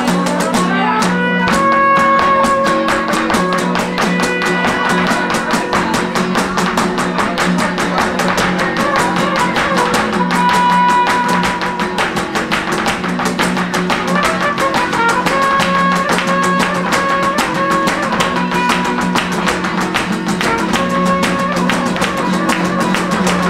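Live flamenco music: nylon-string acoustic guitars with percussion and rapid percussive strikes from the dancer's footwork, under a line of long held melody notes.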